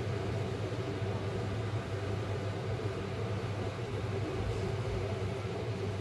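Electric motor of a remote-controlled shell prop running with a steady low hum as it swings the upper half of the shell shut.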